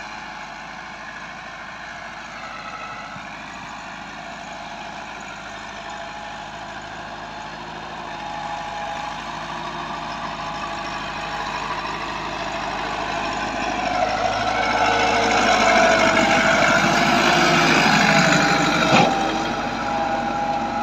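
Massey Ferguson 385 tractor's four-cylinder diesel engine running steadily under load while pulling a spring-tine cultivator through the soil. It grows louder as the tractor approaches, with a short sharp knock near the end.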